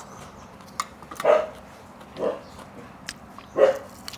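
A dog barking three times, short calls about a second apart.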